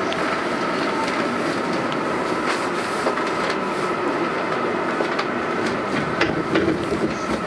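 Inside an R142A New York subway car running through a tunnel: a steady rumble of wheels on rail with a steady high tone, and a few sharp clicks from the track.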